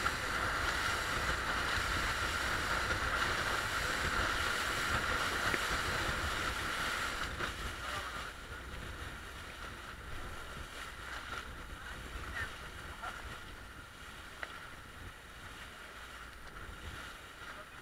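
Small motorboat under way: a steady engine drone with water rushing and splashing along the hull, and wind buffeting the microphone. The whole sound drops somewhat in level about halfway through.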